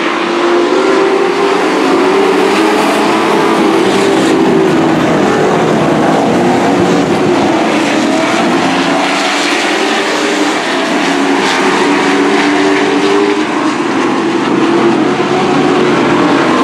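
A pack of dirt-track racing trucks running at speed around the oval, their engines overlapping in a loud, steady drone whose pitches waver as the trucks go through the turns and down the straights.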